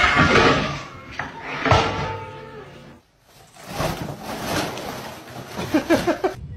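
A cat yowling in long, drawn-out calls, with a short break about three seconds in.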